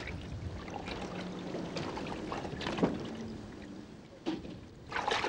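Water sloshing and the sea rushing past a sailing yacht's hull, with a louder rush of water near the end.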